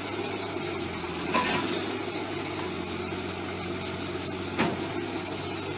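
Cat 301.8 mini excavator's diesel engine running steadily under load, with two sharp clanks, about a second and a half in and again near the end, as the machine works its tracks and arm onto the truck bed.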